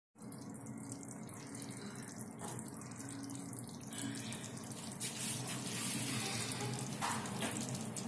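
Braised pork simmering in its sauce in a frying pan on a gas stove: a steady sizzling, bubbling hiss with small pops, getting a little louder about halfway through.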